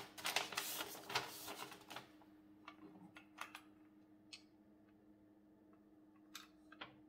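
Paper crinkling and light clicks of small plastic model-railway parts being handled. The clicking is dense for about the first two seconds, then thins to scattered soft ticks.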